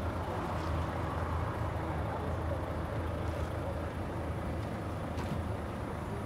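Volvo FH500's 13-litre straight-six diesel idling, a steady low drone heard from inside the truck's cab.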